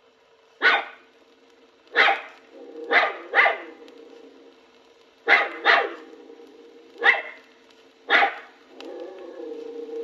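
A dog barking eight times in sharp single barks and quick doubles, over a faint steady hum. Near the end it gives way to a lower, drawn-out, wavering whine.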